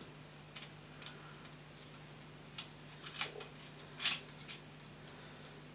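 Handful of small, sharp clicks and taps as a metal axle with its drive gear is slid and seated into a 3D-printed plastic locomotive chassis. The loudest click comes about four seconds in, over a faint steady low hum.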